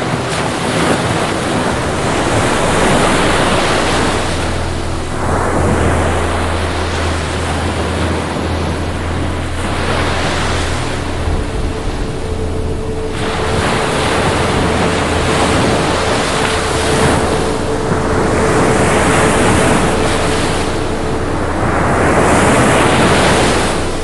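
Ocean surf: waves breaking and washing ashore in swells that rise and fall every few seconds.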